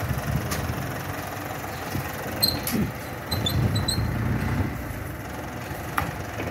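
Diesel engine of a small dump truck running as the truck pulls forward off a freshly dumped pile of stones, with a few brief high squeaks about halfway through.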